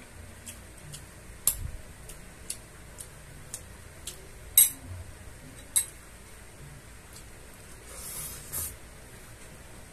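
A metal spoon clinking sharply against a glass bowl and dishes, three times, over a clock ticking about once a second. Near the end comes a short wet eating noise as food goes into the mouth.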